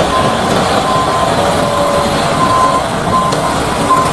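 Cement mixer truck sound: a steady running noise with a high reversing-alarm beep sounding on and off.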